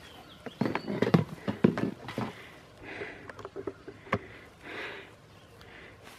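Footsteps on dry pine straw and the knocks and rustles of a folding chair and bucket being carried and handled, with a cluster of knocks and thuds about a second in and a single sharp knock about four seconds in.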